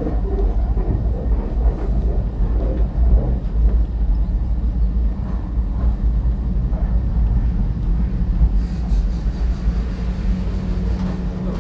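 Cable-hauled Great Orme Tramway tramcar running on its rails, a steady low rumble.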